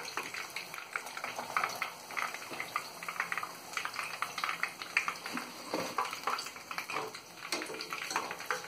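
Hot oil crackling and sizzling as battered chicken pieces deep-fry in a kadai, with occasional scrapes and taps of a wire skimmer against the pan as pieces are lifted out.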